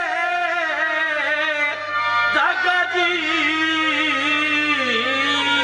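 A man singing a slow, ornamented melody with long gliding notes, over steady held notes from an accompanying instrument.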